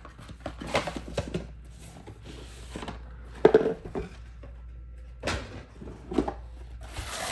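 A cardboard card-game gift bundle box being opened and its contents handled: scattered knocks, slides and rustles at irregular moments, the loudest about three and a half seconds in.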